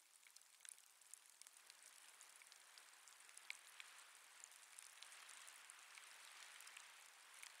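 Faint light rain pattering: scattered small drop ticks over a soft hiss, growing a little louder after the middle.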